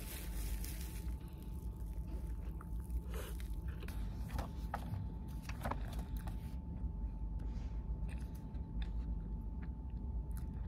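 A person biting into and chewing a green tortilla wrap held in cling film, with small crunches and clicks scattered throughout.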